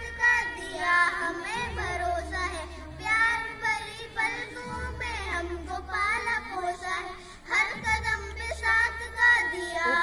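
Young girls singing a Hindi welcome song (swagat gaan) together, in phrases that rise and fall with a wavering pitch. A low rumble comes and goes underneath.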